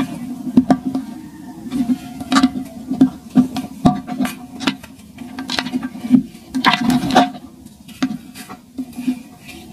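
Dry compacted sand being crushed and crumbled between fingers: irregular crisp crunches and gritty crumbling, with a burst of louder crunches about seven seconds in.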